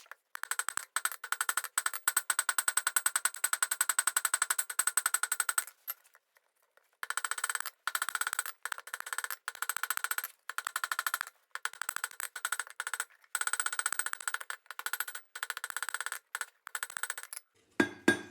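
Rapid hammer blows on hot steel at the anvil, many strikes a second with a bright metallic ring. There is a pause of about a second near the six-second mark and short breaks later on.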